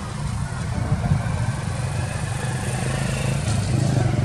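A vehicle engine running steadily with a low hum, growing a little louder toward the end.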